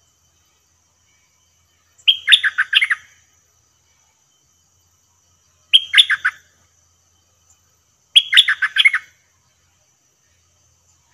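Bulbul singing three short phrases of quick, rapid notes, about two, six and eight seconds in.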